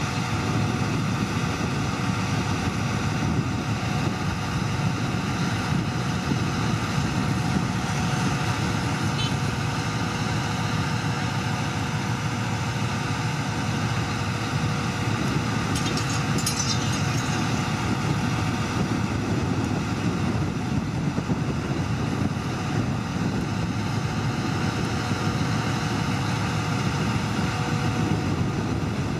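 Crane truck's heavy diesel engine running steadily, with a short metallic rattle about halfway through.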